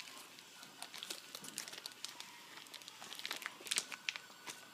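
Clear plastic treat bag crinkling in a hand while a dog noses and tugs at the treat inside: a run of faint, scattered crackles that gets busier about three and a half seconds in.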